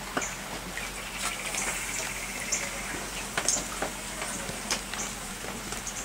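Batter-coated fish fillets being picked out of a plastic container and dropped one by one into a perforated aluminum fry basket: soft wet slaps and scattered light clicks, over a low steady hum.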